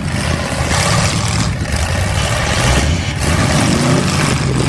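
Several demolition derby cars' engines running and revving at once, a loud steady din of engine and exhaust noise.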